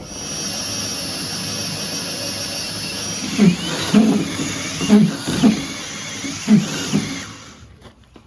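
An electric power tool's motor running steadily with a high whine, starting abruptly and winding down near the end.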